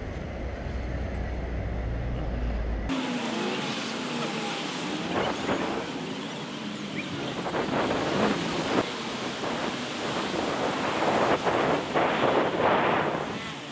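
Wind rumbling on the microphone, then, after an abrupt change about three seconds in, city street noise with traffic going past.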